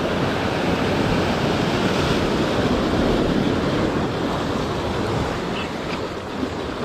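Sea surf breaking and washing among the boulders of a rock jetty, a steady rushing of water, with wind rumbling on the microphone.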